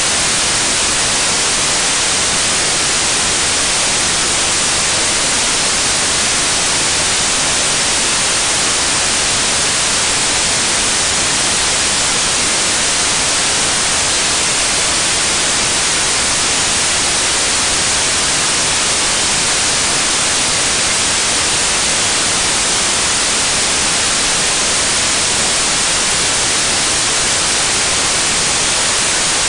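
Loud, even static hiss like white noise that never changes. It shows no engine rhythm or pump beat.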